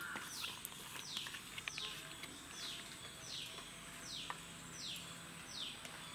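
A bird calls over and over with one short, falling whistle, about every three-quarters of a second. A faint steady high tone runs behind it, and there is a light knock of a bowl being set down about four seconds in.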